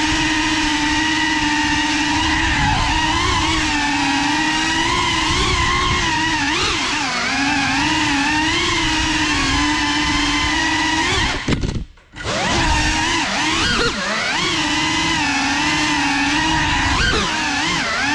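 Brushless motors and ducted propellers of a GEPRC 35 cinewhoop FPV drone whining steadily in flight, heard through the on-board GoPro 9, the pitch wavering up and down with throttle. About twelve seconds in, the whine cuts out for about a second, then rises back to full.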